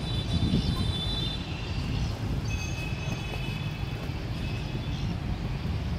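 Steady low outdoor rumble, with faint thin high tones that come and go twice.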